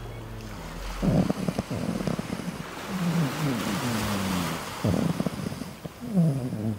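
Chihuahua puppy vocalizing in its sleep: a run of low grumbles and whimpers, most sliding downward in pitch, with surf washing in the background.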